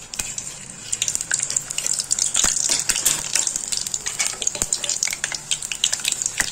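Appalam (papadum) frying in hot oil in a kadai: a dense, steady crackling sizzle of many fine pops, with two sharper knocks in the middle.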